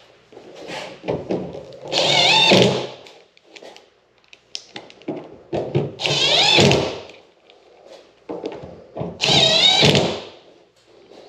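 Cordless impact gun driving screws, three bursts of about a second each, its motor whine wavering as it hammers, with small clicks and knocks of parts being handled between the bursts.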